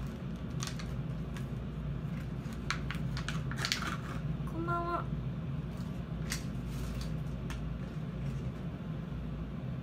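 Scattered light taps and clicks from a smartphone being handled and tapped, over a steady low room hum. A brief pitched tone sounds about halfway through.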